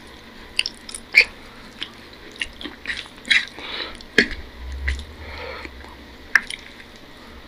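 Close-up eating sounds: wet chewing and mouth smacks, with fingers squishing rice and curry on a plate. Scattered short, sharp clicks, the sharpest about a second in and again near the end.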